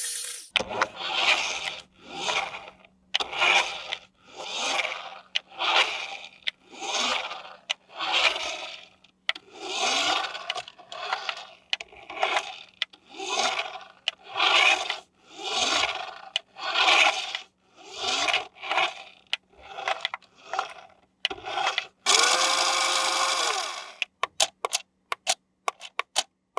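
A long series of scraping strokes, about one a second. About 22 s in they give way to one longer, steady whirring noise of about two seconds with a low hum in it.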